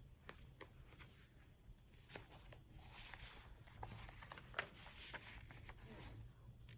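Faint rustling and light ticks of paper journal pages and inserts being handled and turned.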